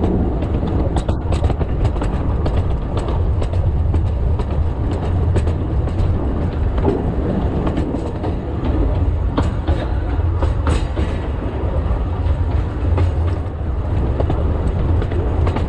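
Narrow-gauge forest railway train running along the track: a steady low rumble, with irregular clicks and rattles of the wheels over the rails.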